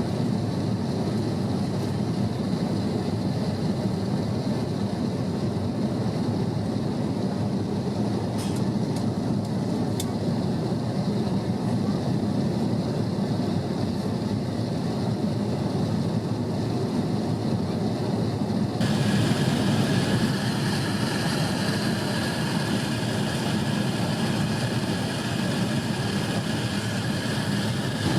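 Steady rush of an Airbus A350-900 jetliner in flight: engine and airflow noise with a deep rumble. About two-thirds in the hiss turns suddenly brighter and stays that way.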